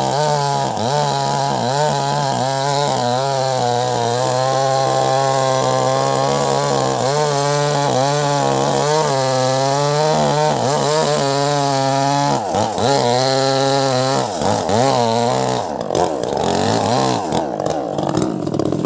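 Wagner WG620 two-stroke chainsaw running at high revs while cutting wood, its engine pitch wavering continually under the load. From about two-thirds of the way in, the pitch dips and recovers more deeply.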